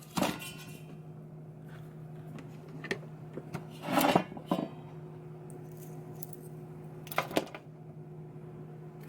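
A few scattered knocks and clatters of small hard objects being handled and set down on a workbench, the loudest about four seconds in, over a steady electrical hum.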